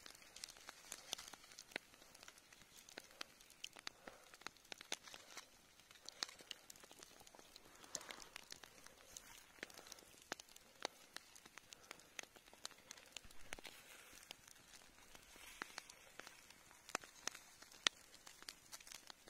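Pork neck grilling directly on a smouldering log: faint, irregular crackling and popping of the embers and the cooking meat.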